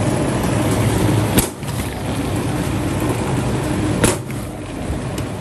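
Electric dough-rolling machine running steadily as bread dough is worked through its roller, with two sharp knocks, about a second and a half in and again about four seconds in.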